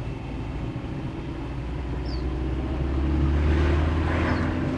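Car engine and road noise heard from inside a moving car: a steady low rumble with hiss above it, swelling about three seconds in.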